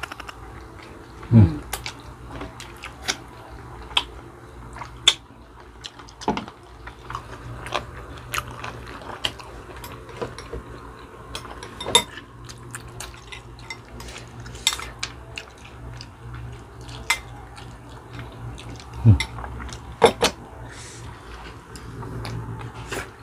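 Close-up eating sounds of chicken feet adobo being eaten by hand: wet chewing, sucking and lip smacks, with sharp clicks scattered throughout. Two short low sounds fall in pitch, about a second and a half in and again about three-quarters of the way through.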